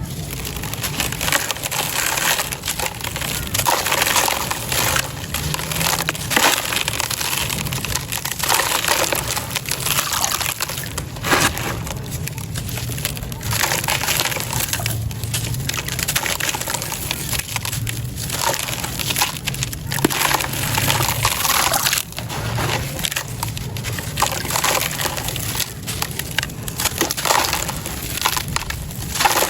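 Crunchy, gritty sand stones being crumbled by hand: a dense, unbroken crunching and crackling of many small grains breaking.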